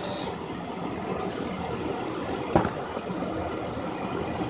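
Drill driving a hand-held fluid transfer pump, whining steadily and then stopping abruptly a moment in, while transmission fluid is pumped into the transmission. A steady mechanical hum carries on, with one sharp click about halfway through.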